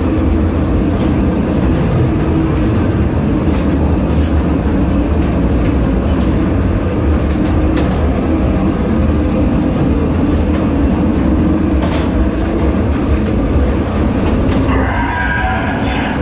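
Ghost-train car rolling along its track: a steady, loud, low rumble with scattered clicks and knocks. Near the end a wavering, pitched cry starts over it.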